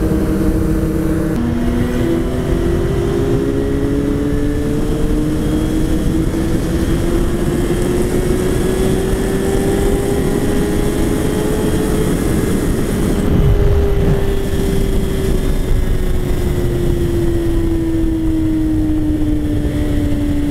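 Sport bike engine heard from the rider's seat under heavy wind noise. The revs drop with an upshift about a second in, then climb slowly and steadily as the bike accelerates in gear, and ease off gradually from about two-thirds through.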